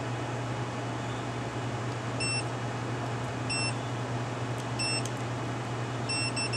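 Short high electronic beeps repeating about every second and a quarter, beginning about two seconds in, with two close together near the end, over a steady low hum.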